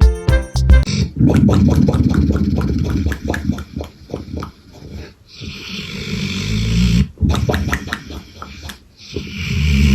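A dog snoring: long rattling, low snores alternating with hissy breaths, the loudest snore near the end.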